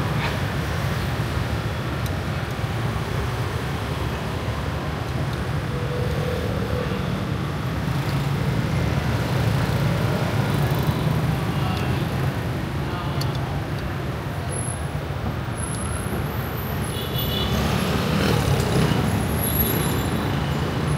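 Steady rumble of road traffic passing an open-fronted shop, with a few faint high-pitched tones near the end.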